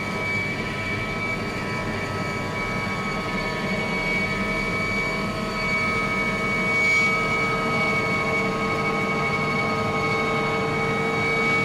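Steady road and engine noise of a moving car, as picked up by a dashcam's microphone, with several faint steady electrical whines over it.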